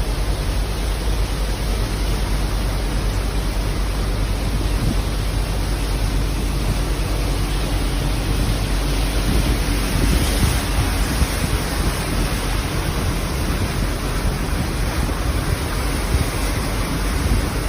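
Steady rushing noise of heavy water, dense and even, with a deep low rumble underneath, swelling a little about ten seconds in.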